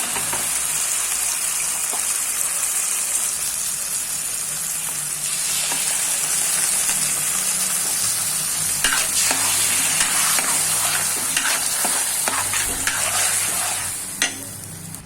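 Garlic, onion and bell pepper sizzling as they sauté in a pan with tomato sauce, with a spatula clicking and scraping against the pan as it is stirred, from about five seconds in. The sizzle drops away shortly before the end.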